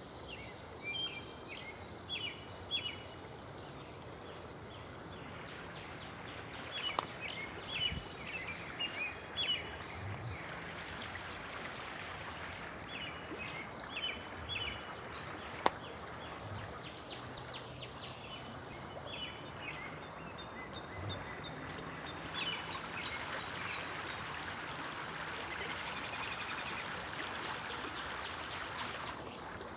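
Songbirds calling in quick groups of short, high chirps, repeated every few seconds, over a steady outdoor hiss. A single sharp click about halfway through.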